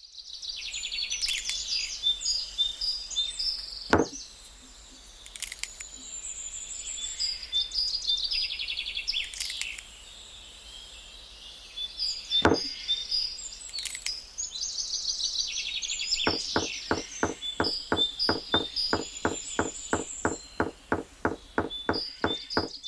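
Small birds chirping and twittering throughout, with two single sharp clicks. Over the last third comes a fast, even series of knocks, about three or four a second.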